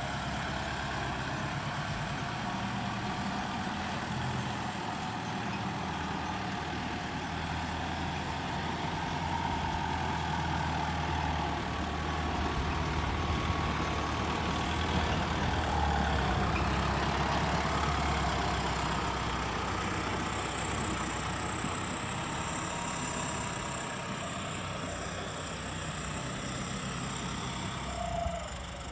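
Kubota turbo-diesel tractor engine running steadily as the tractor pushes and levels soil with its front blade, a little louder through the middle.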